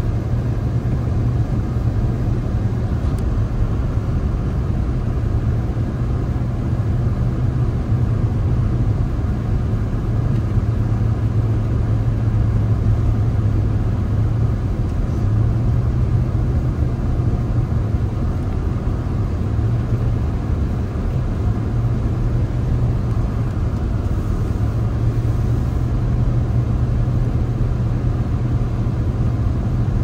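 Steady low rumble of a car being driven: engine and road noise that holds even throughout.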